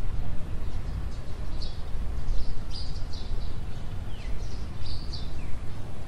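Birds in the trees calling with short high chirps again and again, and two falling whistled notes in the second half, over a steady low rumble.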